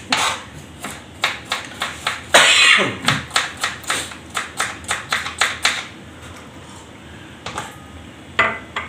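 Kitchen knife chopping okra on a plastic cutting board: quick, even chops about four a second, pausing about six seconds in before a few more cuts. A brief louder rasp sounds about two and a half seconds in.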